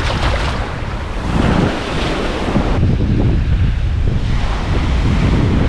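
Strong wind buffeting the microphone with a heavy low rumble, over the wash of surf breaking on the beach, which swells about two seconds in.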